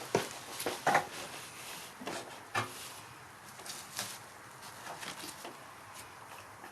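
Irregular light clicks and knocks over a steady hiss, busiest in the first three seconds and thinning out after.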